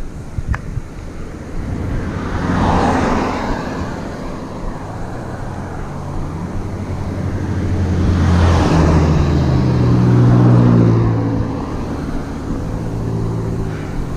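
Motor vehicles passing close by on the road, one about three seconds in and another past the middle, the second followed by a low engine hum that swells and then fades about eleven seconds in.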